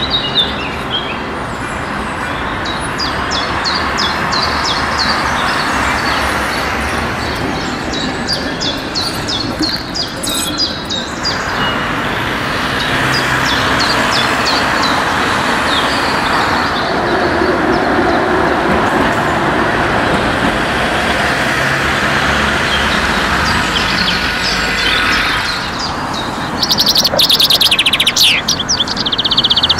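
City street sound of traffic and trams running past, with birds chirping throughout. Loud, rapid high chirping starts near the end.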